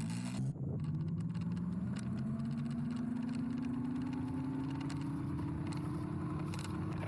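A vehicle's motor hum climbing slowly and steadily in pitch, as when it speeds up.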